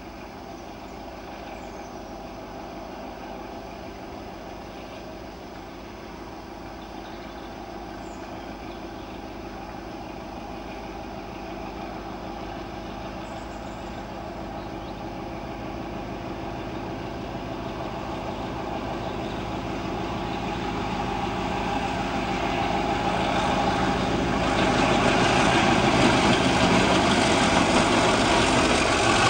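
A Class 33 and a Class 47 diesel-electric locomotive, with Sulzer V8 and V12 engines, working under power as they pull away hauling five dead Class 47s. Their steady engine note grows louder as they approach, with a step up near the end.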